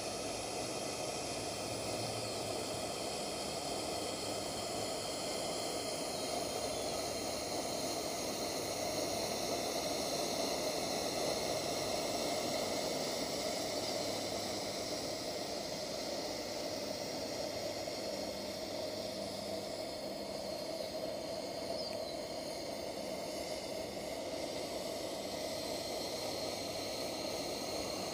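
Coleman 238B pressure lantern burning, its pressurized burner and mantle giving a steady, even hiss.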